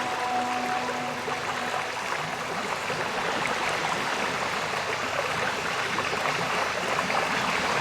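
Steady rush of running water from a stream. The last held tones of soft music die away in the first couple of seconds.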